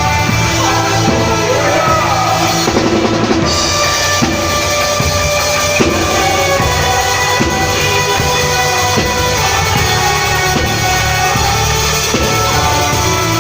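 A band playing music with a drum kit prominent, kick and snare drum keeping a steady beat under held instrument notes.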